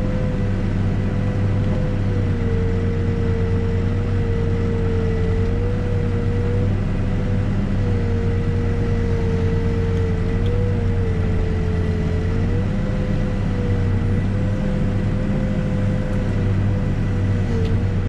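New Holland backhoe loader's diesel engine running steadily while digging, heard from inside the cab, with a steady low hum and a high whine that wavers slightly in pitch.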